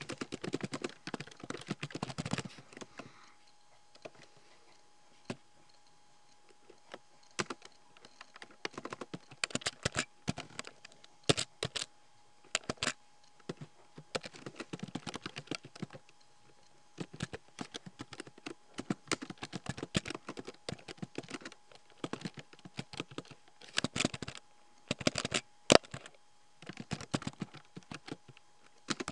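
Computer keyboard typing: runs of quick keystroke clicks with short pauses between them, and a longer lull of a few seconds early on.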